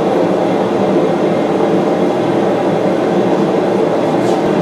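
Propane gas forge burning with a steady, loud roar.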